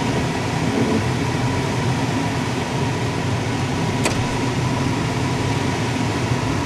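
Steady in-cabin running noise of a 1995 Lincoln Town Car moving off slowly: V8 engine and the air-conditioning blower turned up, with a single sharp click about four seconds in.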